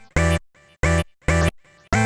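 Electronic music of short, chopped chord stabs with deep bass, starting and stopping abruptly about twice a second.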